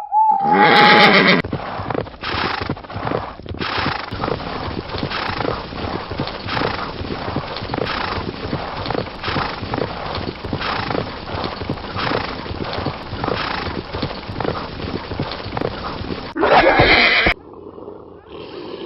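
A loud animal call, then a long run of rhythmic knocks lasting about fourteen seconds, then a second loud call near the end.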